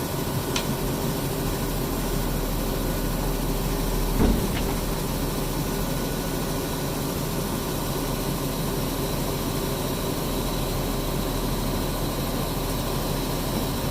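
Front-loading washing machine running with a load of diapers: a steady mechanical hum, with a single dull thump about four seconds in.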